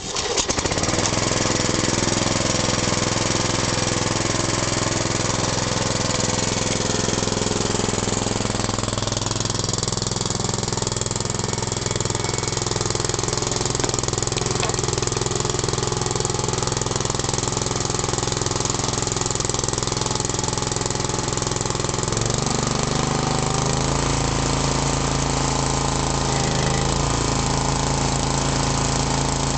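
Small gasoline engine of a Ryan Greensaire 24 walk-behind core aerator, starting and then running steadily. About two-thirds of the way through, the engine note changes and a deeper rumble comes in.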